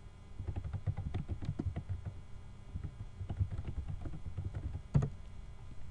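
Typing on a computer keyboard: a quick run of keystrokes for about four seconds, then one louder click near the end.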